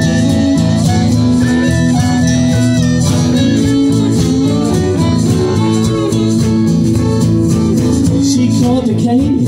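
Acoustic string band playing live, with guitar, fiddle and upright bass.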